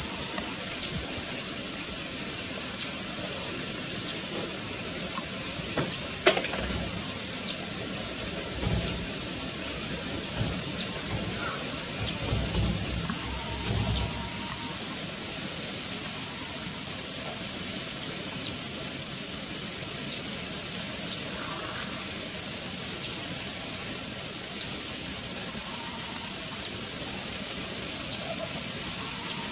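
Cicadas droning in a loud, steady chorus, a high buzzing hiss that never lets up.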